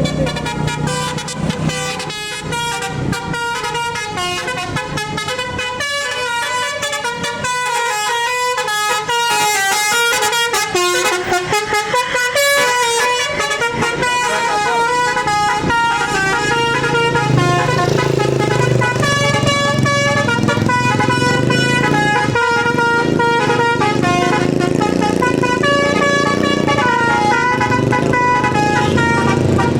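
A bus's multi-tone 'telolet' air horn playing a quick tune of stepped notes, changing pitch several times a second. A bus engine runs beneath it in the second half.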